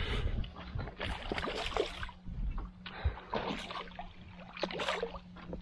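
Hooked golden perch thrashing and splashing at the water's surface as it is played to the landing net, in several irregular bursts.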